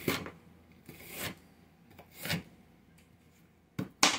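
Knife cutting through a red onion and striking a plastic cutting board, one slow stroke about every second, then two quicker, louder chops near the end.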